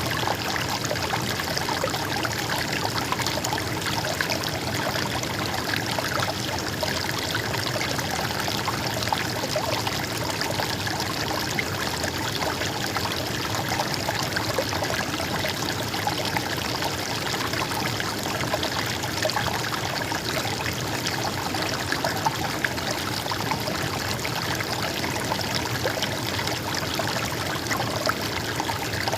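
A stream of flowing water trickling steadily and evenly, with no let-up or change.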